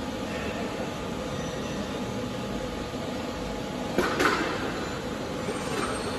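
Steady machine noise of a workshop where an industrial welding robot is running its program, with a short louder burst of noise about four seconds in.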